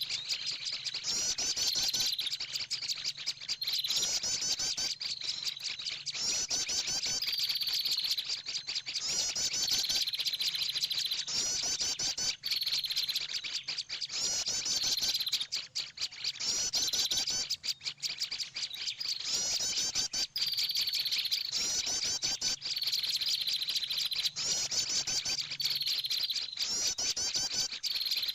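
Small-bird lure recording played on a loop as a trapping call: a busy high twittering of chirps that repeats the same phrase about every two seconds.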